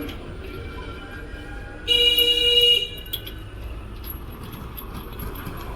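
A vehicle horn honks once for about a second, over a steady low rumble of traffic.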